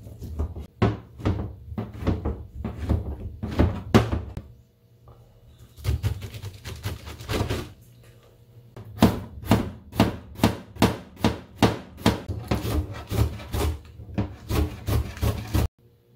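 Kitchen knife chopping on a plastic cutting board in runs of sharp strikes: first through stacked fish cake sheets, then through enoki mushrooms and a green onion. After a short pause it settles into a steady rhythm of about three chops a second, which stops sharply near the end.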